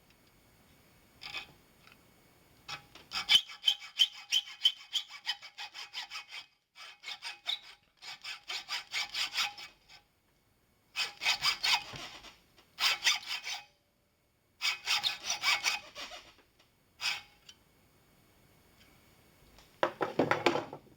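Hacksaw cutting into a rolled sheet-brass hinge barrel, metal rasping in several runs of quick strokes with short pauses between, as the hinge teeth are sawn down close to the plate. A duller, lower sound follows near the end.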